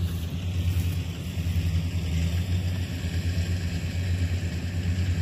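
Kubota DC70 combine harvester's diesel engine running steadily at close range, a rapid low throb.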